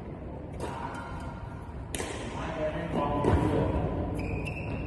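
Shuttlecock struck with a Yonex Astrox 99 Pro racket strung with BG65 Ti at 34 lb: a few sharp string pops, the loudest about two seconds in, with voices in the background and a brief high squeak near the end.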